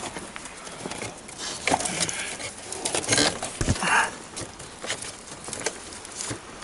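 Irregular clicks, knocks and rustling of hands working among plastic dashboard trim and wiring under a car's steering column, with a few louder knocks.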